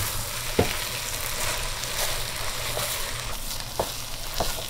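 Chicken and ground walnuts sizzling as they sauté in a metal pot, stirred with a wooden spoon that knocks against the pot a few times.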